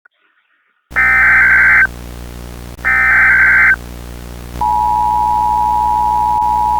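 Emergency Alert System tones: two high, warbling data bursts of about a second each, the SAME header, then about four and a half seconds in the steady two-tone EAS attention signal starts and holds, over a faint low hum.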